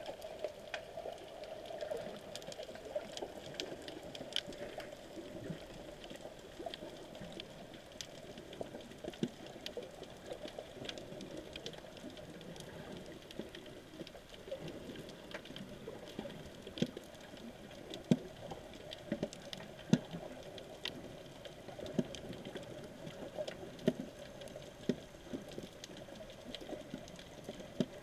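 Underwater sound picked up by an action camera in its waterproof housing: a steady, muffled hum with scattered irregular clicks and crackles.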